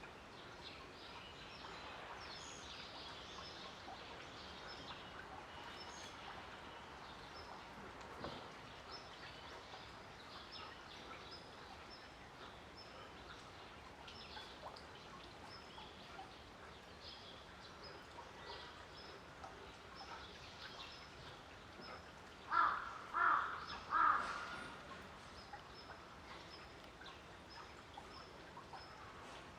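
Outdoor ambience with small birds chirping in short high notes throughout. About three quarters of the way through come three loud short calls in quick succession, the loudest sounds here.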